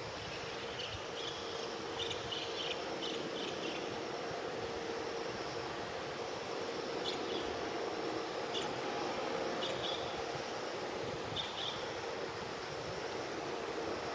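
Steady outdoor noise of strong wind and rain, with a faint steady hum and scattered short high chirps.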